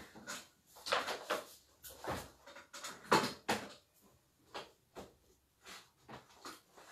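Irregular off-camera handling noises: short knocks and rustles, a few a second, loudest about a second in and again about three seconds in.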